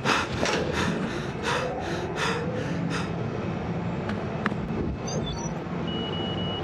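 Sci-fi sound effects over a steady low machine hum: for the first three seconds, regular noisy pulses about three a second. Then a couple of clicks and short high electronic interface beeps, followed by a steady high electronic tone as a holographic touch screen comes up.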